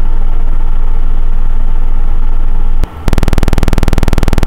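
Computer tone generator playing a 20 Hz triangle wave as a low, steady buzz. A little under three seconds in it cuts off with a click and a 20 Hz sawtooth wave starts: a harsher, rattling buzz of about twenty clicks a second that sounds like a tractor.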